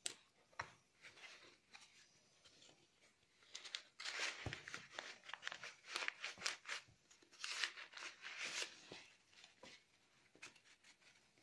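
Rustling and crinkling of a baby stroller's padded seat fabric and straps as they are handled and fitted by hand, with a sharp click at the start. The rustling grows denser and louder in the middle, then thins out.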